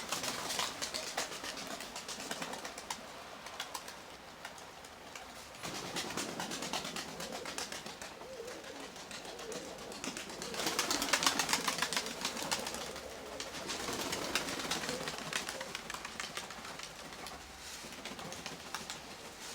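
Nikolaev pigeons cooing softly under a steady hiss and patter of rain, which swells louder twice.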